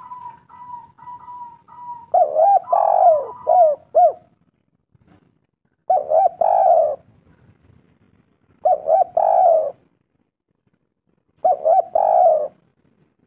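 Spotted dove (tekukur) cooing: four phrases of quick warbling coos, each about a second long and coming every two to three seconds. A thin steady tone plays under the first two seconds.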